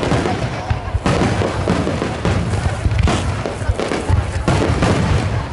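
Aerial firework shells bursting in rapid succession, many booms overlapping into a continuous barrage with sharp cracks on top.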